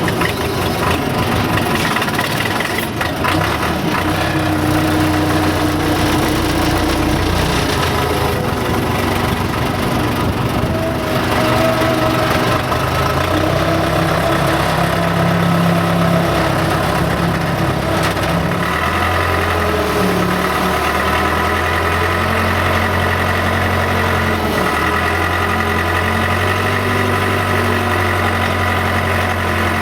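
Case 580C loader-backhoe's four-cylinder diesel engine running steadily as the machine drives and works, its pitch shifting up and down through the first part and holding steadier for about the last ten seconds, with a couple of brief knocks.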